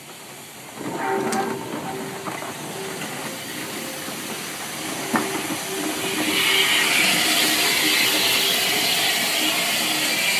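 Southern Railway Bulleid Battle of Britain class steam locomotive 34070 Manston moving slowly past, with steam hissing from its cylinder drain cocks. The hiss grows loud about six seconds in, and a few sharp knocks come from the running gear and track.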